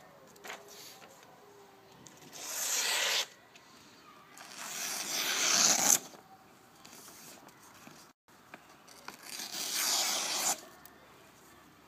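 A Condor Bushlore bushcraft knife slicing through sheets of paper: three slicing strokes, each a papery hiss, the second the longest and loudest and stopping abruptly. The blade cuts on its factory edge, never yet sharpened.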